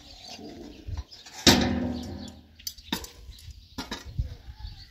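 Metal tongs clicking against a charcoal grill as roasting corn is turned on the coals: one sudden loud knock that rings briefly about one and a half seconds in, then several sharp separate clicks.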